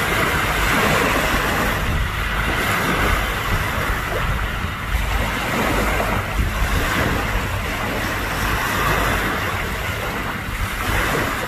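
Steady wind buffeting the microphone, with seawater washing at the shore.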